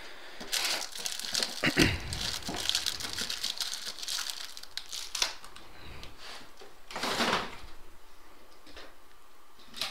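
Plastic crinkling and rustling as a pack of card sleeves is opened and handled, in bursts with a few sharp clicks, then a shorter burst about seven seconds in.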